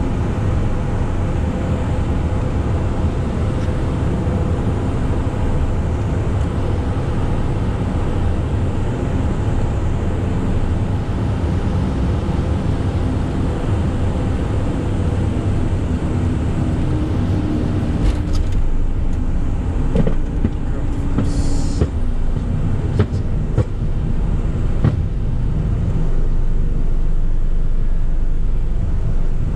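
Cessna Citation CJ2+ on final approach, heard from the cockpit: a steady rush of airflow over the hum of its twin Williams FJ44 turbofans at approach power. About 18 seconds in, a few knocks and clicks mark the wheels touching down, with a brief high squeal shortly after. The runway rollout rumble grows louder near the end.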